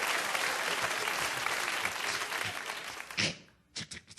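Studio audience applauding, dense and steady, then cutting off abruptly about three seconds in, leaving a quieter stretch with a few sharp clicks.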